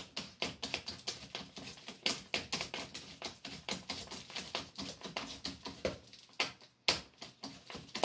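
Worm-gear clamp on flexible foil dryer vent duct being tightened with a screwdriver: a quick, uneven run of small clicks and ticks, several a second.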